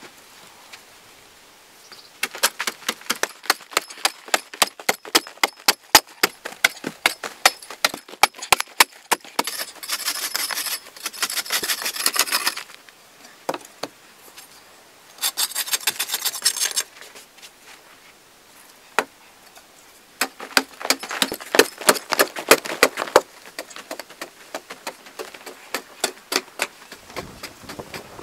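A long-handled hoe striking and scraping dry sandy clay soil in quick repeated chops, with stretches of denser scraping as loose earth is dragged.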